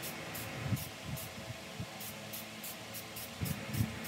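Aerosol can of Rust-Oleum camouflage spray paint spraying in a rapid string of short hissing bursts, laying light coats on a rifle stock.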